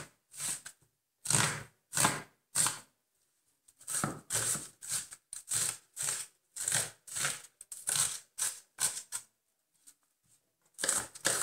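Kitchen knife chopping an onion on a wooden cutting board: a run of sharp knocks, about two or three a second, with a short pause about three seconds in and another near the end.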